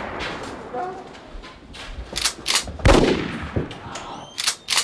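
A gunfight: the ringing tail of one gunshot fades, then about half a dozen sharp shots ring out at uneven intervals in the second half, the loudest about three seconds in.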